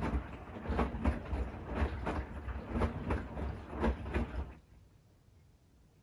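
Bosch Series 6 i-dos front-loading washing machine tumbling a wet load of fleece hoodies on a quick wash. The load swishes and flops over with a thud about once a second as the drum turns. The drum then stops about four and a half seconds in.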